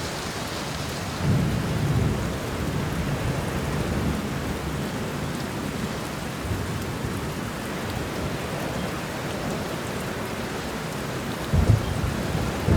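Steady heavy rain hissing, with low thunder rumbles: one swell about a second and a half in and a sharper, louder clap near the end.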